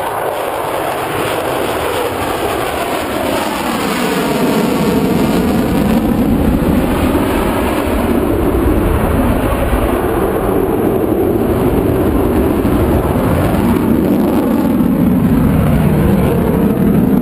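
Belgian F-16 fighter's jet engine running at high power during a display pass, a loud steady jet noise that grows louder over the first several seconds and sweeps in tone as the jet passes and climbs away.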